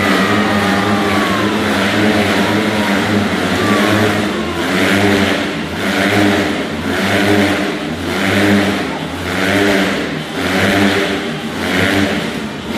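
Motorcycles running inside a globe of death, the engine note swelling and fading about once a second as they loop around the sphere.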